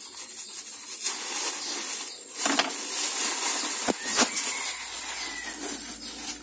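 Thin plastic bag crinkling and rustling as it is cut with scissors and pressed into a cardboard box as packing filler, with a few sharp knocks about two and a half and four seconds in.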